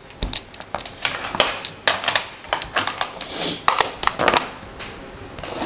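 Plastic Rummikub tiles clicking and clacking as they are set down and slid together on a tabletop, a string of irregular sharp clicks.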